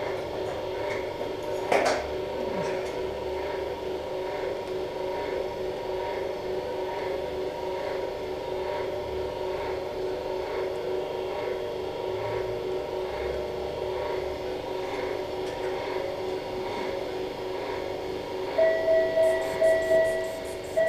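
Steady electrical hum of the arthroscopy equipment, a drone of several fixed tones that does not change. A single sharp click comes about two seconds in, and near the end a quick series of electronic beeps sounds, about two or three a second.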